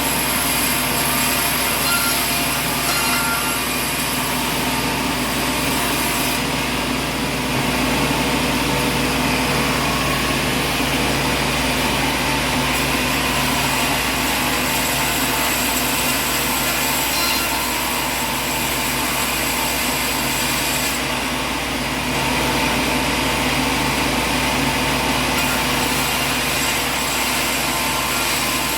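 Sawmill machinery running, a constant mechanical drone with several steady whining tones and little change.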